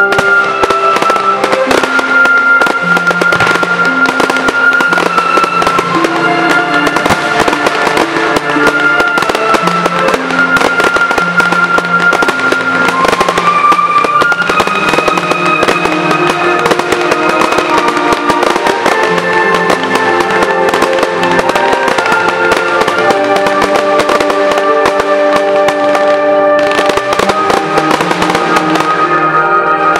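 Aerial fireworks shooting up and bursting in rapid, overlapping bangs and crackles, over loud film-theme music with long held notes.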